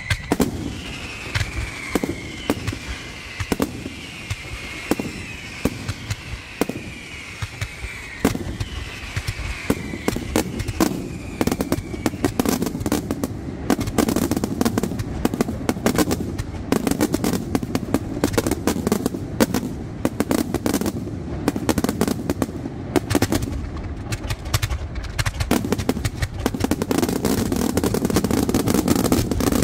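Fireworks display: aerial shells launching and bursting in quick succession, with high whistles falling slightly in pitch through the first dozen seconds. From about ten seconds in, the bangs come thicker with a dense crackle, building toward the end.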